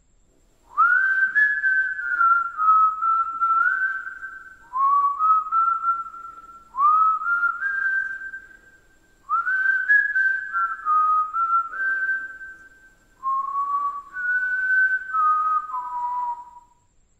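A person whistling a slow, idle tune in five phrases, each starting with an upward scoop and stepping between held notes, with short pauses between the phrases.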